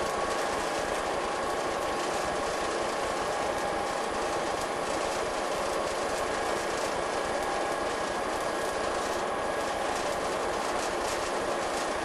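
Class 219 diesel locomotive running, heard inside its driver's cab: a steady engine drone mixed with wheel and rail noise, a few steady high tones over it, and faint ticks from the track.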